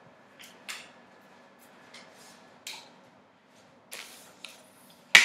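Scattered light knocks and rustles of someone moving about and handling things, over a faint steady hum, then one loud sharp click just before the end.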